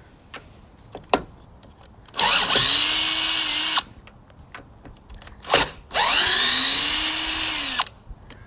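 Power drill running in two bursts of about two seconds each, spinning up and winding down, as it backs out the fasteners of a vehicle's factory roof rack. Several sharp clicks and knocks come before and between the bursts.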